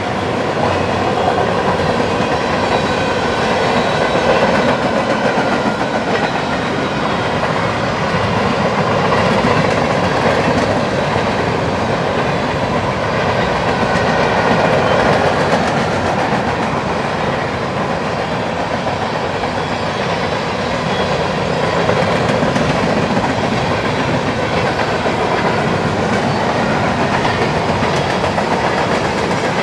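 Union Pacific freight cars rolling past at speed: a steady rumble of steel wheels on rail with a rapid, continuous clatter over the rail joints, rising and falling gently as the autoracks, covered hoppers and tank cars go by.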